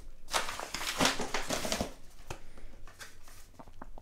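Rustling and crinkling of a paper padded mailer as it is handled and a boxed camera battery is pulled out, dense for the first two seconds, then a few light clicks and taps.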